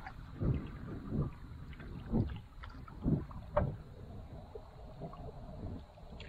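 Canoe paddle strokes through calm water: a splashing surge about every second for the first four seconds, then quieter.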